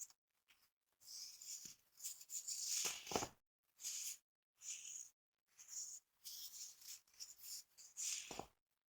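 Packed baking-soda-type powder crushed by hand in a series of separate squeaky, gritty crunches, each a fraction of a second to a second long, with short pauses between. The longest and loudest crunch comes about two to three seconds in.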